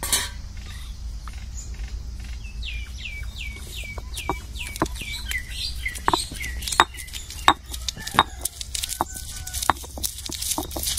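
Stone roller of an ammi grinding stone pressed and rocked over garlic and ginger, crushing them with a string of sharp knocks and cracks from about four seconds in. Earlier, a bird calls a rapid run of short descending notes, about three a second, fading out about six seconds in.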